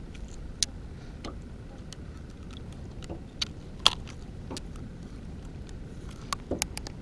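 Scattered sharp metal clicks and taps as hooks are worked out of a small musky's mouth with pliers in a landing net, the loudest about four seconds in and a quick run of clicks near the end, over a steady low rumble.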